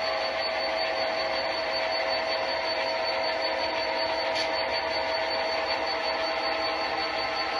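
HO scale model diesel locomotives running on the layout: a steady mechanical hum with a thin high whine.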